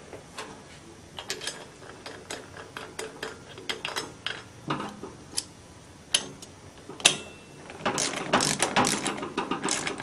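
Ratchet wrench clicking as it tightens the nut on a nitrous bottle valve's hand wheel: scattered single clicks, then a quicker run of clicks near the end.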